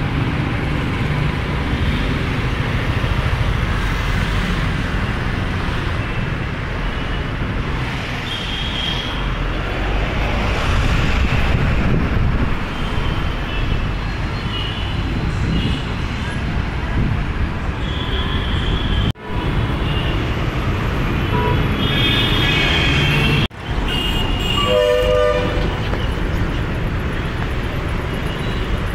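City road traffic running steadily, with vehicle horns honking in short toots several times. The sound cuts out briefly twice in the second half.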